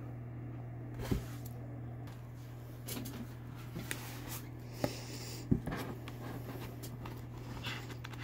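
Handling of a photobook: a few sharp taps and soft paper and cover rustles over a steady low hum.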